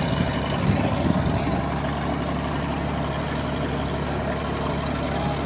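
Engine of a regional riverboat running at a steady cruising drone, heard from on board.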